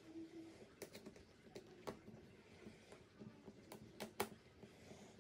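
Faint, scattered clicks and light taps of an RC car's hard plastic chassis and suspension parts being handled and fitted by hand.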